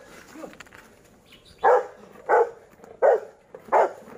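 Rottweiler barking: four loud, evenly spaced barks, starting about a second and a half in.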